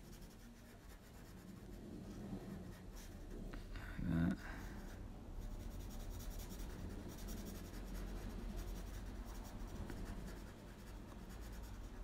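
Black Sharpie marker scratching and rubbing across paper as it fills in a drawing's eyes solid black. A brief louder low sound comes about four seconds in.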